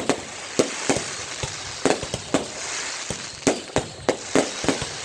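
Fireworks going off: irregular sharp bangs, about three a second with a short lull midway, over a continuous crackle.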